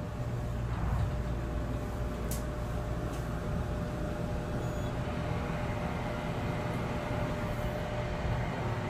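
Elevator cab travelling upward: a steady low rumble with a faint steady hum above it and a couple of faint ticks a few seconds in.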